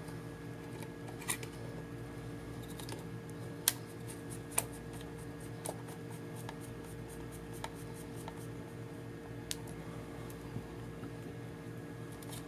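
Small screwdriver driving screws through a retract landing-gear mount into a plastic drone body: scattered faint clicks and light scraping of parts being handled, over a steady low hum.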